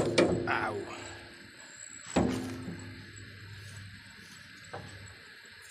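Metal clanks of hand tools against a steel steering tie rod while it is being fitted: a sharp knock at the start, another about two seconds in with a short metallic ring, and a fainter knock near the end.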